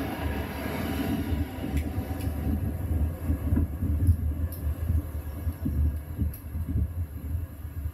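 Diesel multiple unit train running, a low, uneven rumble that grows quieter toward the end, with a few faint clicks.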